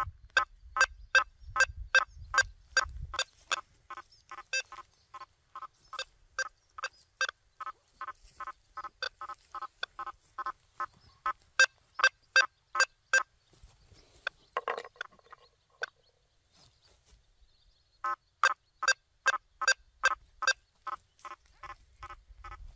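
Quest V80 metal detector with a 9-inch coil beeping as the coil sweeps a nailboard: a quick series of short, pitched beeps, about three a second. The beeps stop for a couple of seconds past the middle, then resume.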